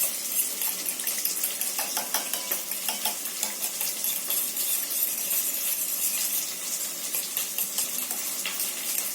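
Shallots and dried manathakkali berries frying in sesame oil in a kadai with a steady sizzle, while a metal spoon clinks and scrapes against a vessel in a string of short clicks, a few of them ringing.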